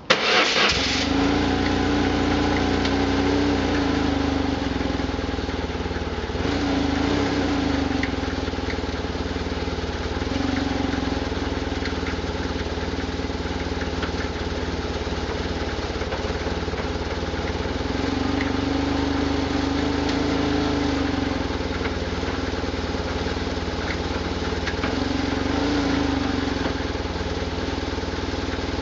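BMW R1100RT-P boxer-twin engine catches and settles into a steady idle, with a distinct rattle from the engine over the running. The rattle holds the same whether the bike is in neutral or in first gear.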